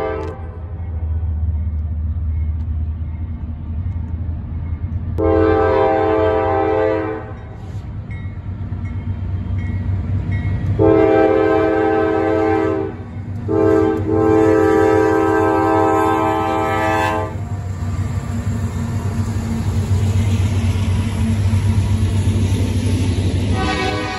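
Diesel freight locomotive sounding its horn for a grade crossing, three long blasts with the last the longest, over the steady low rumble of the engines. The train then rolls through the crossing, its freight cars rumbling past.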